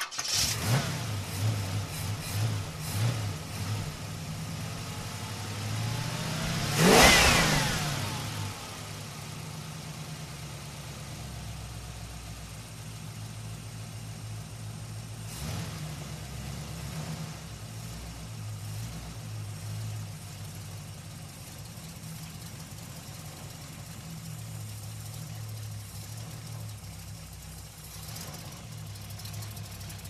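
American muscle car engine just caught and running at an uneven idle with throttle blips. About seven seconds in it is revved hard once, rising and falling, then settles to a steady idle with a couple of small blips.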